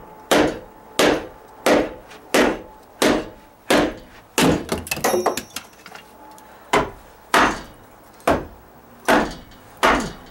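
Hammer striking a cut-off section of dry-rotted 2x6 stud in a steady run of sharp blows, about one and a half a second, knocking it loose from the nails that run down from the top plate. Near the middle a quicker clatter of lighter knocks and a pause of about a second come before the blows resume.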